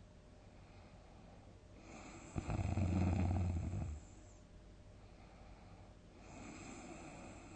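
A sleeping person snoring: one loud, low snore of about a second and a half, starting about two and a half seconds in, then a softer, breathy breath without the snore near the end.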